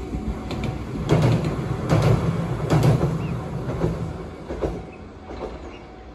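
A train passing on the rails, wheels clacking over rail joints in a run of sharp knocks over a low rumble, loudest about one to three seconds in and then fading away.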